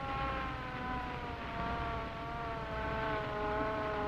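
Mechanical automobile siren wailing as a wake-up call, one long tone whose pitch sags slowly, lifts a little about three seconds in, then sags again.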